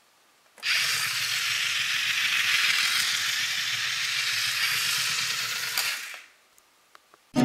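Two Kyosho 1/80-scale radio-controlled buses driving across a wooden floor: their small electric drive motors and gears whir steadily, starting about half a second in and dying away about six seconds in. A couple of faint clicks follow.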